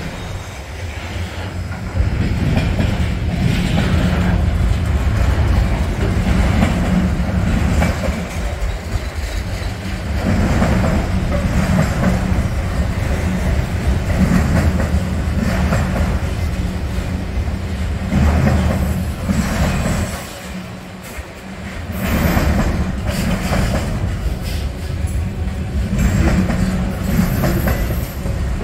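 Freight train's autorack cars rolling past at close range: a steady rumble and clatter of wheels on rail. It swells and eases every couple of seconds as the cars' wheels go by, with a brief lull about two-thirds of the way through.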